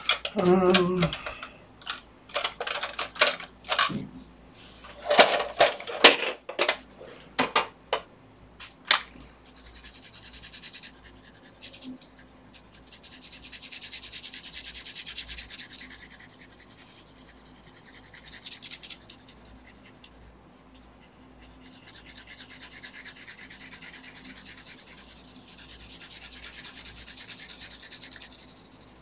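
Colored pencil working on paper. For the first several seconds it makes a run of quick, sharp scratching strokes, then changes to long stretches of softer, steady shading that swell and fade every few seconds.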